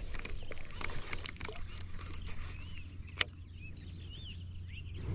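Small birds chirping in short rising-and-falling notes over a steady low rumble of wind, with scattered light clicks and one sharp click about three seconds in.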